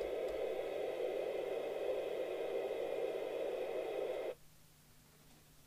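Steady static hiss from a CB radio's loudspeaker, cutting off suddenly about four seconds in.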